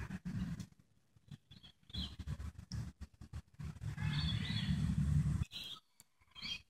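Small birds chirping here and there in the background, over bursts of low rumble on the microphone, loudest a little past the middle.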